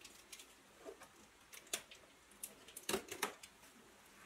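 Utility knife slitting and handling a cardboard box: a handful of faint, scattered clicks and scrapes, the loudest about three seconds in.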